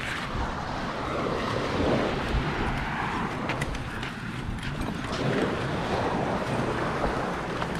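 Wind buffeting the microphone over the wheels of a folding beach wagon rolling across sand and broken shells.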